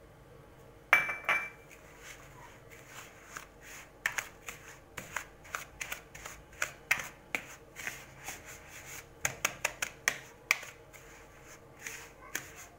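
Wire whisk stirring a crumbly mix of semolina, oil and chopped olives in a bowl. It makes rapid, irregular clinks and scrapes of the wires against the bowl, beginning with a sharp clink about a second in.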